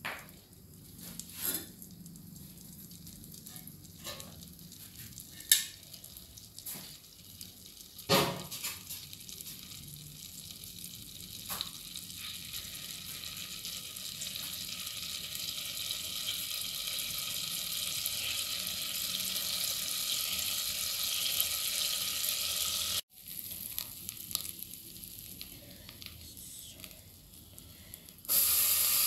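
Butter melting and sizzling in a hot metal pot, the sizzle growing steadily louder as it heats, with a few sharp pops in the first several seconds. Near the end a much louder sizzle starts as chopped spinach and corn drop into the hot butter.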